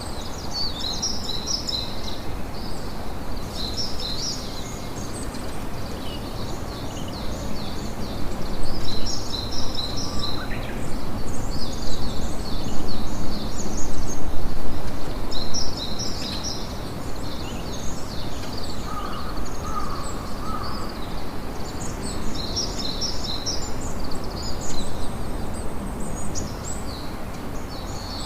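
Campfire crackling steadily, louder for several seconds in the middle, with small birds chirping in short repeated phrases throughout.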